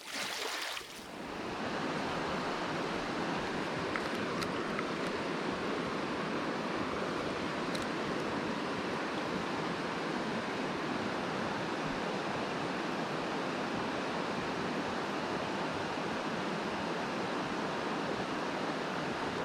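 Steady rush of flowing river water, an even, unbroken noise that sets in about a second in and holds at one level.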